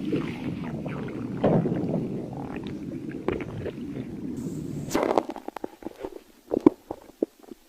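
Stomach growling: a long, low, rough rumble that gives way about five seconds in to a run of short, separate gurgles and pops.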